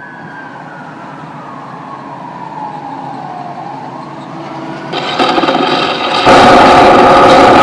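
The sound of a sound-art installation: a whining tone slides down in pitch and begins to rise again. About five seconds in, a harsh, dense buzzing drone cuts in, and about a second later it jumps much louder.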